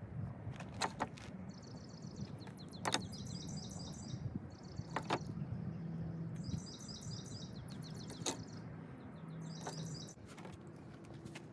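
A bird sings short, rapid trills of repeated high notes three times. Under it run a steady soft rustle and scattered sharp ticks as threads are pulled from cotton denim by hand.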